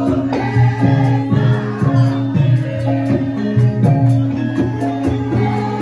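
Javanese gamelan music accompanying a lengger topeng dance: struck metal tones ringing on in a steady rhythm, with a singing voice over them.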